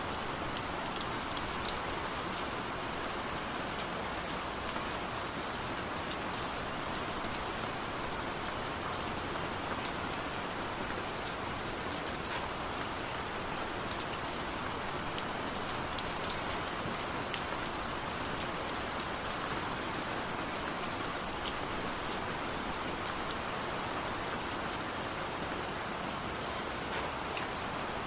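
Steady rain falling, an even hiss with scattered sharper drop ticks on surfaces close by.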